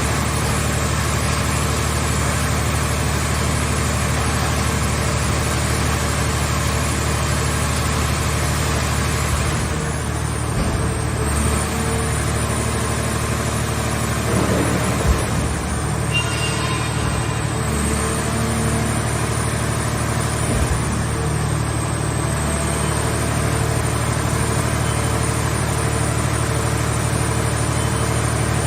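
Engine-driven power unit of a scrap car body baler running steadily, with a few short knocks around the middle.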